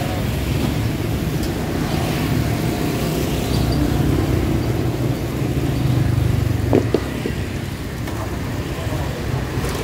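Steady rumble of road traffic, with a couple of light clicks about seven seconds in.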